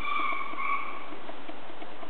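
Chihuahua puppy whining: a thin, high whine that stops about a second in.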